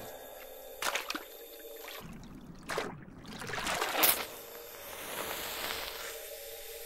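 An archer fish's jet of water spurting and splashing in several short bursts, the loudest a swelling rush about four seconds in.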